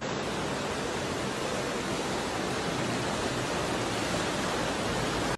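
Steady rushing of a torrent of floodwater pouring down a street.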